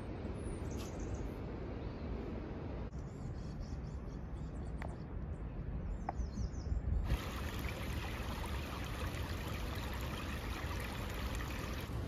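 Steady rush of flowing water over a low rumble, with a few faint bird chirps in the first half. About seven seconds in the water hiss suddenly becomes fuller and brighter.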